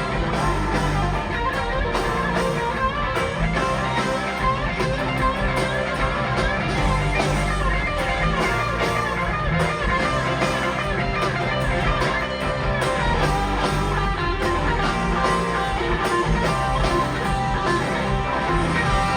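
Rock music: electric guitar-led instrumental passage over a full band, with no singing.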